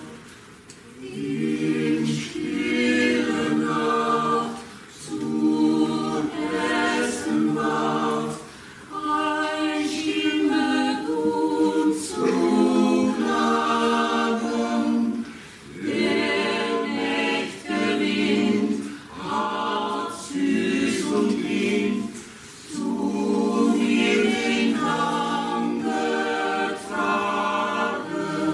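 A stage cast of men and women singing together as a choir, in phrases of a few seconds with short breaks between them.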